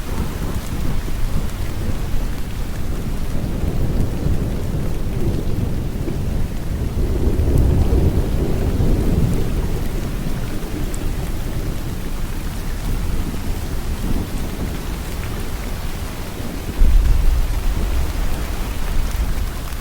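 Steady rain falling, with a low rumble that swells about eight seconds in and rises suddenly near the end.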